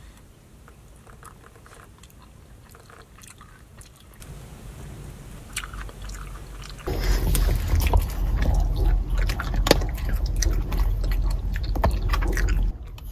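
Crisp pan-fried dumplings being chewed, soft crunchy clicks at first, then much louder, closer crunching from about seven seconds in that stops suddenly near the end.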